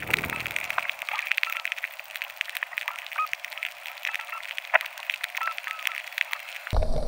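Dense underwater crackling and clicking picked up by a submerged GoPro camera, with short high chirps among the clicks. Near the end it cuts abruptly to a lower rumble.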